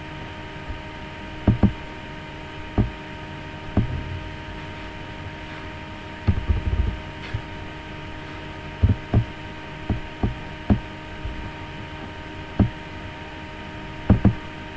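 A steady electrical hum with several fixed tones, broken by about a dozen short, dull, low thumps at irregular intervals, some in quick pairs and a rapid cluster about six seconds in.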